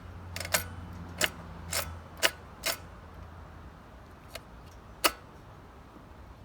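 Sharp clicks and taps of small parts being handled and fitted by hand: a quick run of about six clicks over the first three seconds, then two more, the last a louder snap about five seconds in.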